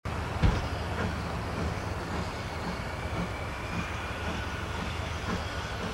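Baldwin 2-8-2 steam locomotive and passenger train moving slowly: a steady low rumble with a soft, regular beat about twice a second, and one louder knock about half a second in.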